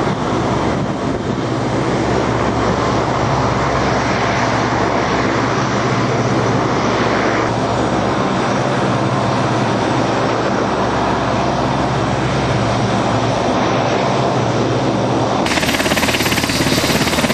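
Coast Guard Jayhawk helicopter running on the ground with its main rotor turning: a steady turbine and rotor noise with a fast chop. About fifteen seconds in it turns louder in the high end and more sharply pulsed.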